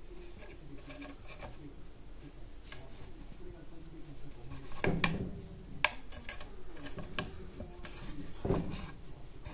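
Rubbing and scuffing on wood with scattered light clicks, as a cat shifts and paws at a string toy in a wooden cubby; louder knocks come about five seconds in, a sharp click about a second later, and another knock near the end.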